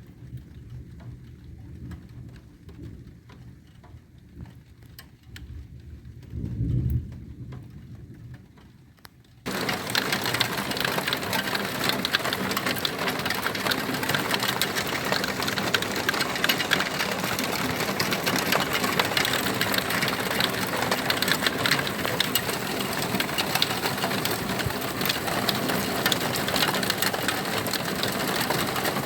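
Thunderstorm: low, rolling thunder rumble that swells about seven seconds in. About nine seconds in it switches abruptly to a dense, steady hiss of heavy rain for the rest.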